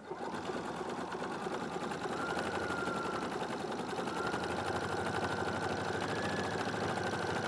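Husqvarna Viking sewing machine stitching steadily, joining a fabric edge to batting under a bar-guided foot. The machine starts suddenly and runs at an even speed, and a faint steady whine joins about two seconds in.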